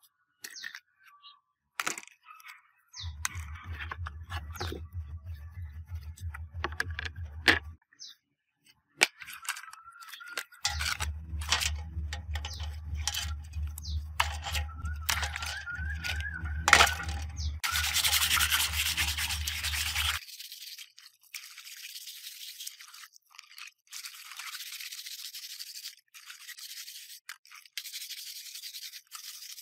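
A small handheld electric tool buzzing in two runs, with scraping and a few sharp clicks as it works against a surface. The scraping is loudest just before the second run stops, about 20 seconds in. After that comes a steady rhythmic rubbing hiss, as of scrubbing, with no motor.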